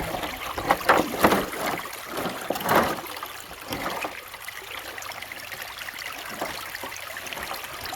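Creek water splashing and running as a sluice box is set down in it: several splashes in the first three seconds, then a steadier trickle of flowing water.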